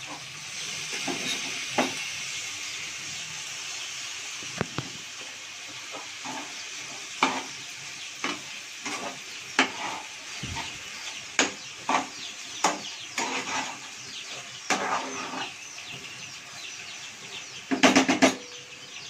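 A steel spatula stirs fresh tomato pieces into an eggplant-and-egg fry in a frying pan, with repeated clicks and scrapes against the pan. There is a light sizzle for the first few seconds, and a brief louder sound near the end.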